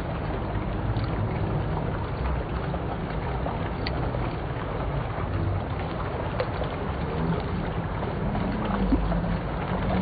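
A fountain's curtain of water spilling over a stone rim and splashing into the channel below, making a steady, unbroken rushing noise.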